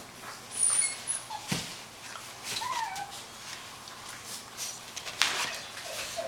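Golden Retriever / Labrador Retriever mix puppy playing with plush toys on a couch: rustling and scuffling as it grabs at them, with a couple of short squeaks, one near the start and a wavering one about three seconds in.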